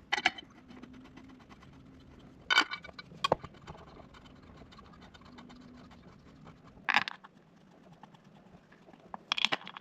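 Sparse sharp clinks and clatters of metal engine parts and tools being handled during assembly, about five short knocks spread over several seconds, the last one near the end a quick double clatter, with quiet in between.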